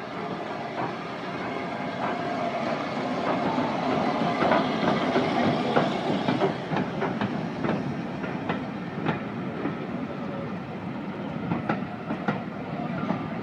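Southern Railway S15 class steam locomotive No. 847 and its carriages rolling slowly past, the sound loudest as the engine goes by. After that the carriage wheels give a run of sharp clicks over the rail joints and pointwork.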